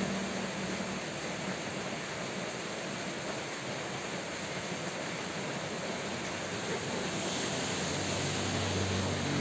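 Steady rain falling, an even hiss of drops without a break.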